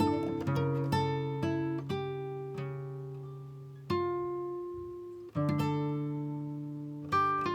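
Background music on acoustic guitar: plucked notes and chords, several left to ring out and fade before the next ones are picked.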